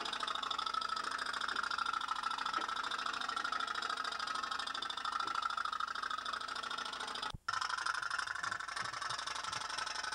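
Pop-pop steam toy boat running, its candle-heated boiler giving a rapid, even putt-putt. The sound drops out for a split second about seven seconds in.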